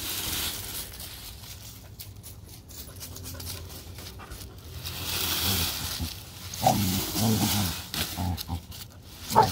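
Dry fallen leaves rustling as a plastic leaf rake is pushed through them, then, from about three seconds before the end, a dog giving a series of short growls.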